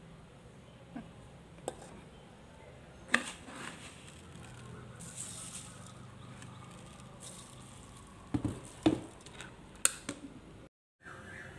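Scattered light knocks and clicks over a faint low hum, with a brief hiss around five seconds in and a cluster of sharper knocks between about eight and ten seconds in.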